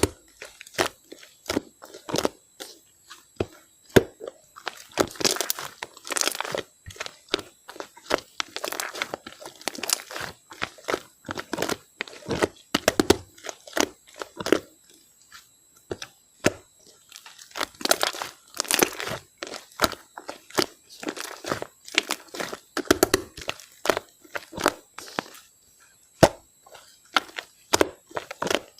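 Slime being squeezed and pressed by hand, making irregular clusters of sharp clicking and crackling pops.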